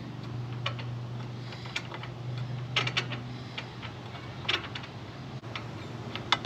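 Scattered metal clicks and clinks of a socket wrench working a spark plug out of a small twin-cylinder mower engine, irregular, with a quick cluster about three seconds in, over a steady low hum.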